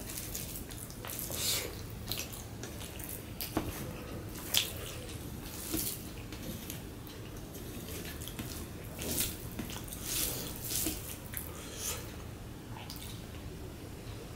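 Rice and mashed bhorta squeezed and mixed by hand on a steel plate: irregular wet squishing and sticky crackles, with a sharper click about four and a half seconds in.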